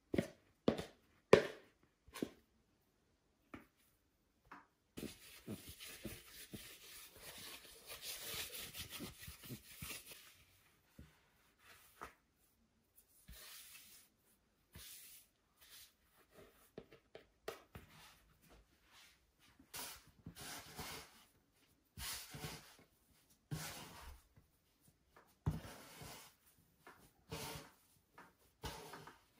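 Kitchen handling sounds of food preparation: a few sharp knocks at the start, then about five seconds of steady rubbing, then scattered taps and rustles.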